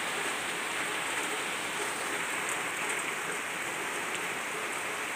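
Heavy rain falling steadily on leaves and vegetation, an even hiss with no breaks.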